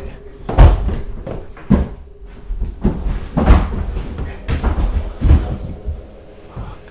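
Loud, irregular thuds and knocks on wooden stairs: hurried footsteps of someone scrambling through a wooden stairwell, with a handheld camera bumping along.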